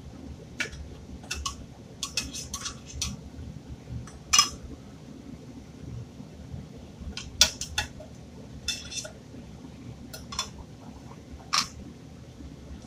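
Metal clinking and scraping as a fork digs canned tuna out of the tin can over a frying pan: a dozen or so sharp, irregular clinks, a few of them ringing briefly, over a low steady hum.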